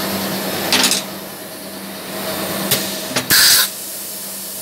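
PVC conduit pipe bending machine running with a steady hum. A short rush of noise comes just under a second in, then a click and a louder half-second rush of noise a little past three seconds in.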